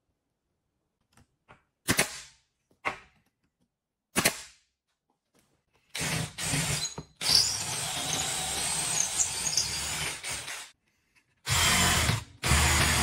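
A few short, sharp knocks. Then a cordless drill bores into driftwood, running in stretches: a long run of several seconds, a short pause, a brief run, another short gap, and it starts again near the end.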